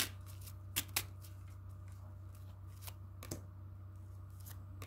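Tarot cards being handled and laid down on a wooden table: a handful of separate sharp snaps and taps spread through a few seconds of quiet.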